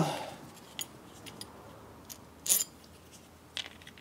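A few light metallic clicks and taps from a steel bolt and washer being handled, the sharpest about two and a half seconds in and another near the end.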